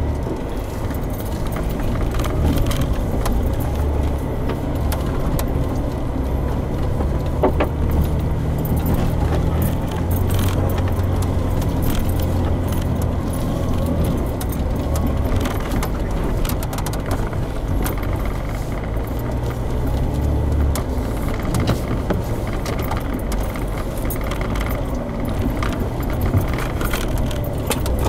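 A 4x4's engine running at low speed as it crawls a rough trail, heard from inside the cab, with frequent rattles and clinks of loose things as the truck rocks over the ground.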